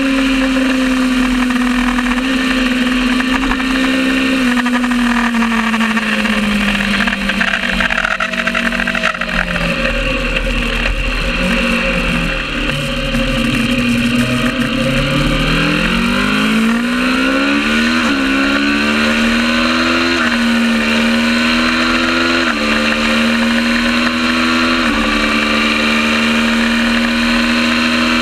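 Kawasaki ER650 parallel-twin race engine held at high revs. Around ten seconds in the revs drop steeply as the bike slows for a corner, then climb back up. After that they rise through a run of upshifts about two seconds apart, each a quick dip in pitch.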